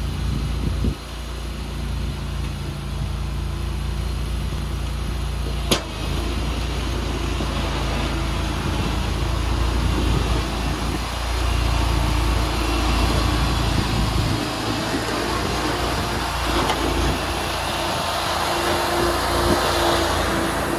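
Engine of a SCAG V-Ride II stand-on mower carrying a V-plow, running steadily as the machine drives across the lot. It gets louder and its tone clearer as the mower comes close near the end. A single sharp click sounds about six seconds in.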